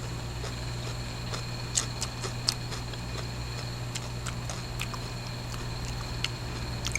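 Close-up eating sounds: scattered sharp mouth clicks and smacks while chewing, over a steady low hum.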